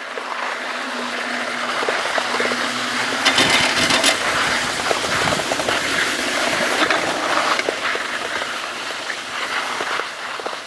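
Skis sliding over packed snow while being towed uphill on a Städeli T-bar ski lift, with scattered clicks and a louder clattering rattle about three seconds in.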